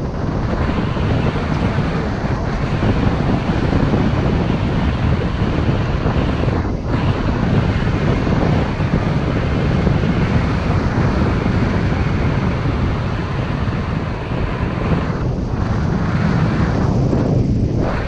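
Strong wind rushing over the microphone of a tandem paraglider in flight, a loud, steady buffeting rush with a few brief lulls.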